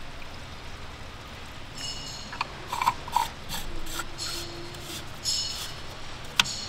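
Plastic cap of a Toyota Supra's low-temperature coolant reservoir being twisted shut by hand: a run of ratcheting clicks starting about two seconds in, with one sharp click near the end.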